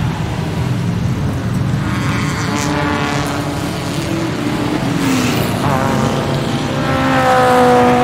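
Racing-car engine sound, revving with its pitch gliding up and down over a steady low engine drone, growing a little louder near the end.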